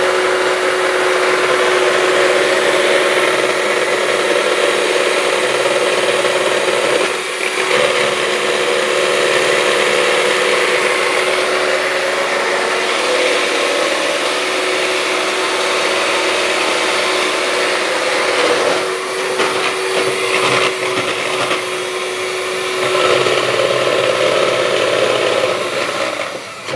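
Electric hand mixer running steadily with a constant whine as its beaters whisk the lemon mousse mixture in a bowl, with a few knocks along the way; it cuts off at the end.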